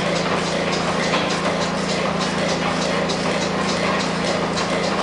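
Stationary steam engine running steadily, its large flywheel turning: a constant low hum under a light, even, rhythmic clatter of the moving parts.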